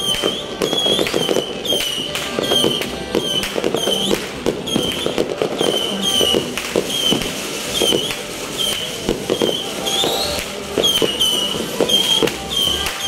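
Aerial fireworks bursting and crackling in quick succession. Over them, a short high chirping tone repeats about twice a second.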